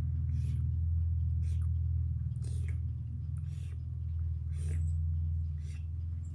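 Wet mouth clicks and smacks, roughly one a second, made to imitate a horse drinking water, over a steady low hum.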